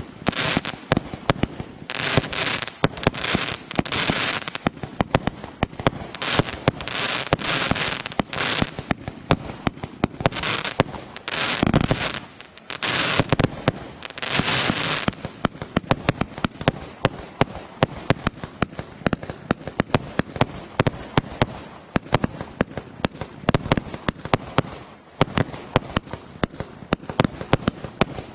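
A Hermes 196-shot compound firework cake firing a continuous barrage: rapid shots and bursting reports one after another, densest and noisiest in the first half with one deeper boom near the middle, then a quicker run of sharp, separate pops.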